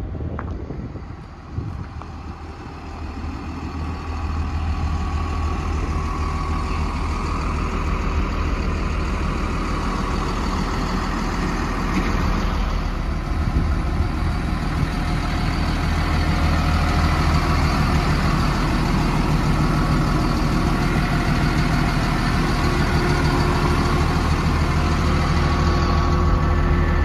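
Cat 938G wheel loader's diesel engine idling steadily, getting louder over the first few seconds.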